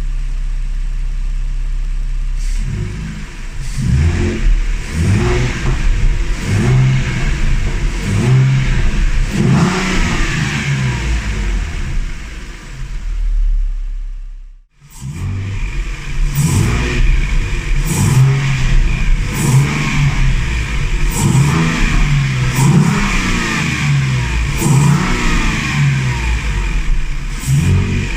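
Ford Mustang 3.7 L V6 with a resonator delete, custom H-pipe and modified stock muffler, idling briefly and then being revved again and again, its pitch rising and falling with each blip. About halfway through there is a brief cut to silence, and a second take of the same revving follows.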